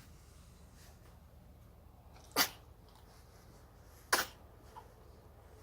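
Two short, sharp sneezes about two seconds apart.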